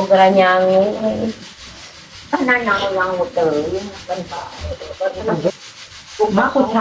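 Women's voices in about four separate phrases with short pauses between them, some vowels drawn out.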